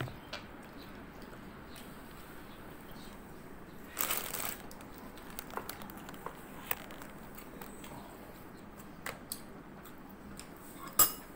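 Quiet room tone with small handling sounds at a dining table. There is a brief crinkle about four seconds in, a few faint light clicks, and one sharper click near the end.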